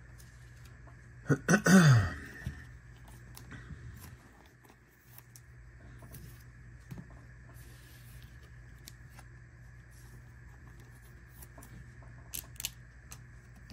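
Panini Prizm trading cards being handled and sorted by hand: faint rustling, scraping and tapping of card stock. A louder cluster of clicks with a short falling sound comes about one and a half seconds in, and two sharp ticks near the end.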